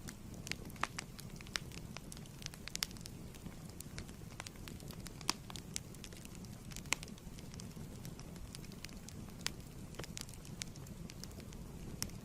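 Fireplace wood fire burning with a steady low rumble and scattered sharp crackles and pops, a few of them louder, about one, five and seven seconds in.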